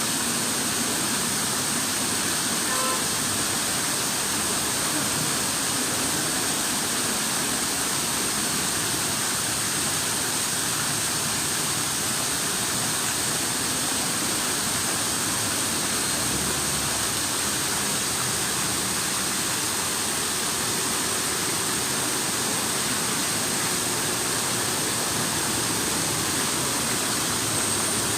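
Running water: a steady rushing, splashing noise that holds at an even level throughout.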